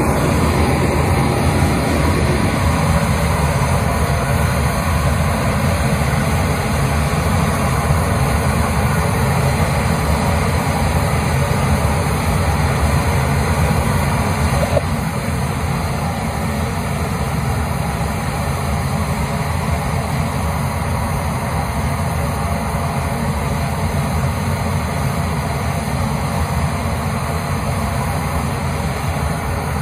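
A steady, loud, low mechanical rumble, like a heavy engine running, easing slightly about halfway through.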